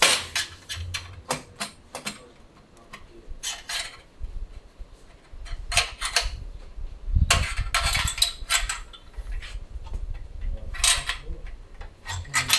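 Metal tools and parts clinking and clanking in irregular knocks during work on a motorcycle, with a low rumble from about five to ten seconds in.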